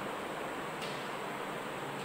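Steady background hiss, with a faint tap of chalk on a blackboard a little under a second in as words are written.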